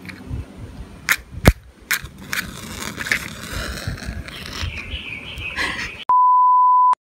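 A wooden match struck against a matchbox's striking strip, several sharp scratches about a second in, then the lit match burning with a steady hiss. About six seconds in, a loud steady electronic beep tone sounds for just under a second.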